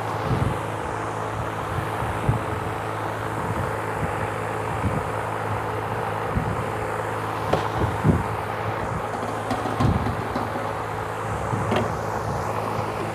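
A steady machine hum with a few short knocks and clatters of handling.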